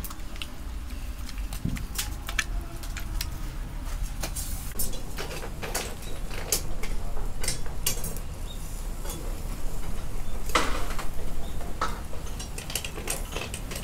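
Kitchen work: a run of sharp, irregular knocks, clicks and clinks of utensils and dishes over a steady low hum, with a longer scraping burst about ten seconds in.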